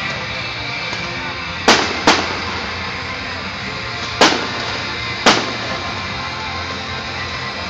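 Aerial fireworks shells bursting with four sharp bangs: two close together about two seconds in, then one about four seconds in and another a second later, each with a short echoing tail.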